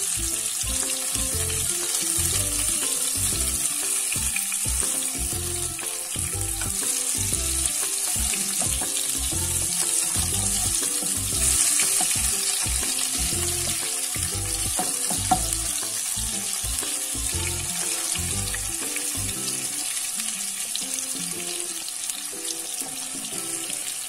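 Masala-coated fish pieces shallow-frying in hot oil in a nonstick pan, a steady sizzle. The sizzle swells about halfway through as more oil is poured into the pan, and there is a single sharp tap a few seconds later.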